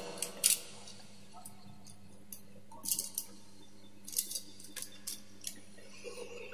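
Scattered light clicks and taps of a plastic wall socket and its wiring being handled as a wire is fitted into it, over a faint steady hum.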